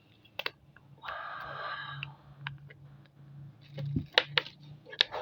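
Light clicks and taps from a small plastic cosmetic jar and its lid being handled and opened, with a short rustling scrape about a second in and a quick cluster of clicks near the end.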